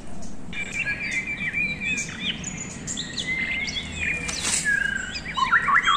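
Several birds chirping and twittering, with many short overlapping calls and a few held whistles, over a light outdoor background hiss.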